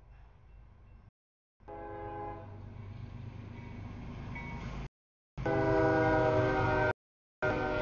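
Air horn of a CSX freight locomotive sounding for a grade crossing as the train approaches, growing louder and loudest from about five and a half seconds in, over a low rumble. The audio drops out to silence three times, briefly each time.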